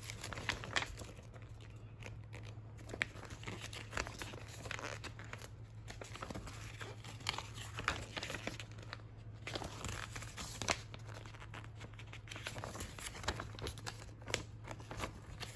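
Glossy paper catalogue pages being turned and handled, rustling and crinkling in short irregular bursts over a steady low hum.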